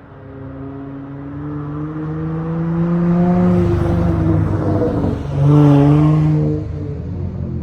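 Dodge Charger SXT's V6 running through a Flowmaster Outlaw exhaust, its pitch climbing as it accelerates, then a louder rev about five and a half seconds in that drops away near the end.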